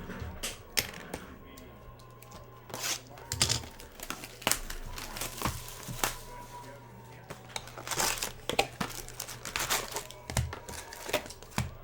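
Foil trading-card pack wrappers being torn open and crumpled: a run of short, irregular crinkling and tearing rustles.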